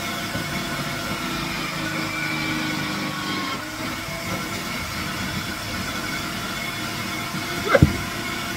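Electric food-processor grater running steadily while squash is pushed down its feed tube onto the grating disc. A sharp knock comes near the end.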